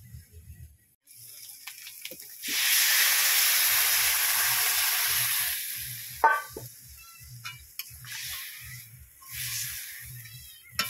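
Potato pieces sizzling in hot oil in a metal karahi. The sizzle starts loud and suddenly about two seconds in and dies down over a few seconds. A metal ladle clinks against the pan just after, and quieter sizzling follows as the potatoes are stirred.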